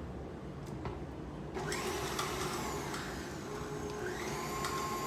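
Electric stand mixer starting up and running, mixing a glaze of confectioner's sugar, orange juice and butter; its motor comes up with a rising whine about a second and a half in, then settles into a steady whine near the end.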